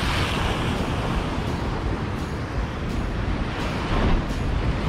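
Surf breaking on a rocky shore, a steady rush of waves with wind buffeting the microphone. A wave crashes right at the start, and another swell rises about four seconds in.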